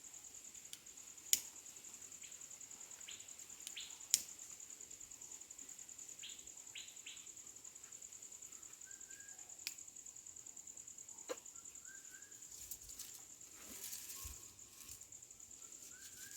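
Insects trilling steadily in a high, fast-pulsing drone, with faint short bird chirps and a few sharp clicks or knocks, the loudest two in the first few seconds.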